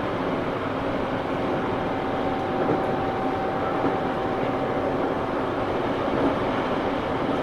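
Running noise inside a Tobu 9000 series electric train car (armature chopper control) moving at a steady speed: a continuous rumble with a faint steady whine that comes up about two seconds in. The car is the one whose motors sounded unusual, unlike a normal 9000 series, as if a different motor were fitted.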